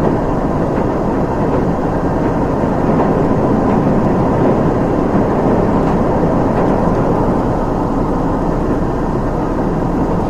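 Steady running noise of the limited express Nanpu diesel train, heard from inside the carriage: engine and wheels on the rails at speed.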